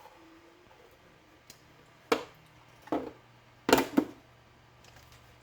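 Four short, sharp knocks or clacks: one about two seconds in, one nearly a second later, then two close together around four seconds in.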